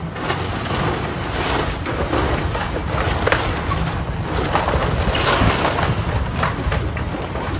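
Demolition excavator running as it tears apart a wooden house, with a steady low rumble and repeated sharp cracks and crunches of splintering timber and falling debris.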